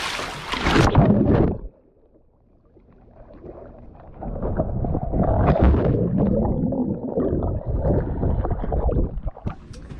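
Splashing in a swimming pool, then just under two seconds in the sound turns dull and muffled as the microphone goes under water: gurgling, bubbling and muffled churning of people moving in the water.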